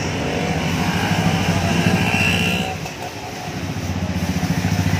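A motorcycle engine running steadily with an even low throb, dipping in loudness briefly about three seconds in.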